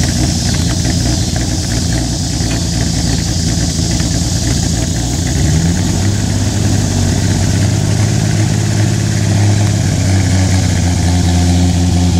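Ford 300 inline-six engine of a 1980 Ford van, revived after decades of sitting, running steadily at idle. About halfway through it rises to a faster speed and holds there.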